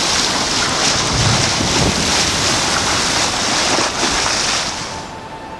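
Water rushing and splashing along a sailing yacht's hull as it moves through the water, with wind buffeting the microphone. The rush fades out near the end.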